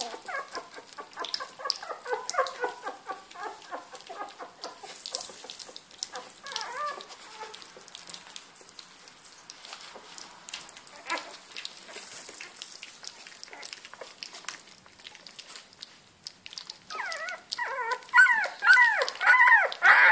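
Litter of 22-day-old puppies eating gruel from a bowl at their first solid feed: wet lapping and smacking clicks, with high squeaks and whimpers in the first few seconds. Loud squeals that bend up and down set in near the end.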